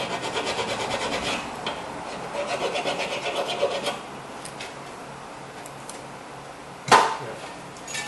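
Hand file rasping back and forth on the rusted steel rear brake bracket, cleaning rust off where the brake pads sit. The strokes come in two quick runs and stop about four seconds in. A single sharp knock follows near the end.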